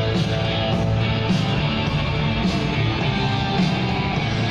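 Rock music with electric guitar over a steady beat.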